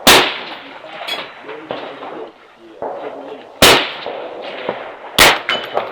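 Three loud gunshots from rifles on a shooting range: one right at the start, one about three and a half seconds in and one about five seconds in, with a fainter distant shot about a second in.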